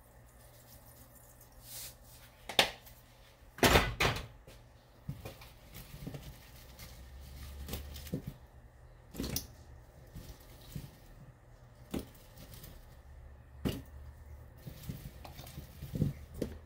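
Scattered kitchen knocks and clatters of a stainless saucepan and containers being handled while Brussels sprouts go into a pan of salted water on the stove. The loudest clatter comes about four seconds in, with single knocks spaced through the rest.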